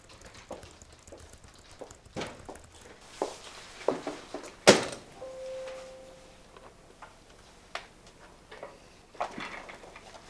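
Office door knocking shut with one loud thunk about four and a half seconds in, amid scattered small knocks and clicks. A brief steady tone follows the thunk.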